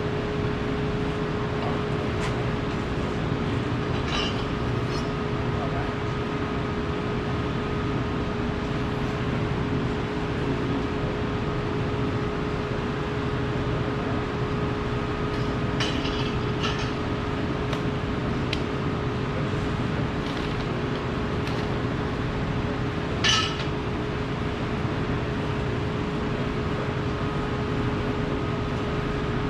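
Steady mechanical hum with a constant low tone, the running equipment of a fabrication shop. A few light metallic clinks sound over it, the loudest about 23 seconds in.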